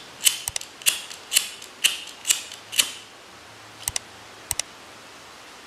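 Small lighter struck again and again to burn and seal the freshly cut end of a Dyneema line: seven sharp clicks about half a second apart, then two quick double clicks near the end.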